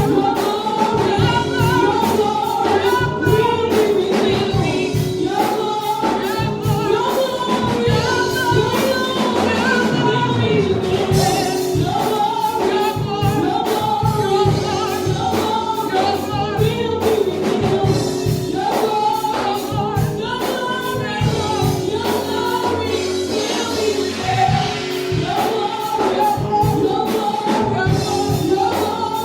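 Gospel choir singing over a band with a steady beat.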